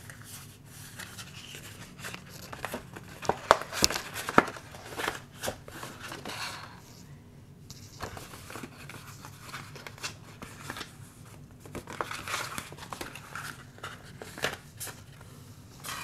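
Scored paper being folded back and forth along its score lines: irregular rustling and crinkling, with a few sharp clicks a few seconds in.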